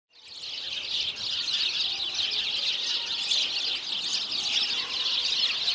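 A dense chorus of many small birds chirping at once, overlapping high chirps with no pause. It fades in at the start and cuts off suddenly at the end.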